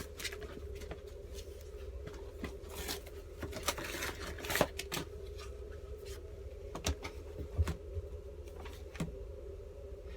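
Handling noises: scattered light clicks and a brief spell of rustling, over a steady low electrical hum.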